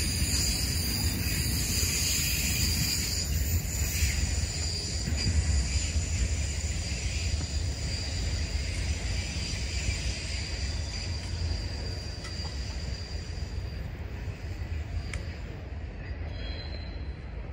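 Low rumble of a freight train rolling away just after its last car clears the crossing, slowly fading, with high steady ringing tones that weaken after about four seconds.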